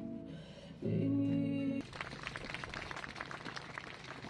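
Live acoustic guitar music ends on a held note. About two seconds in, a crowd breaks into steady applause.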